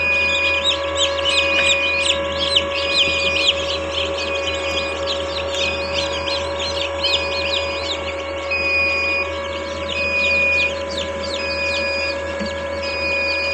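A crowd of newly hatched chicks peeping continuously in a hatcher tray, many overlapping high chirps, over the steady hum of the incubator. A short flat beep repeats about once a second throughout.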